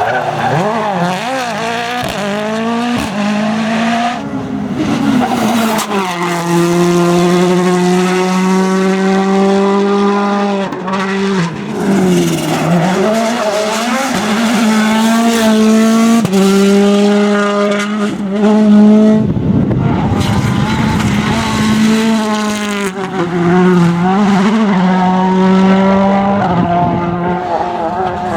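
World Rally Cars' turbocharged 1.6-litre four-cylinder engines running hard at high revs, the pitch held, then dipping and climbing again, across several short shots. Tyres squeal and skid, with a stretch of rushing noise about two-thirds through.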